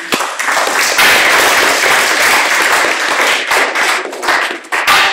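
Audience applauding, a dense round of clapping that thins out to a few scattered claps near the end.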